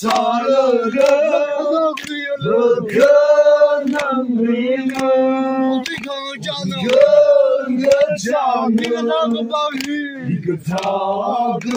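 A group of voices, mostly male, singing a chant-like song together with long held notes, over sharp hand claps keeping a beat of about two a second.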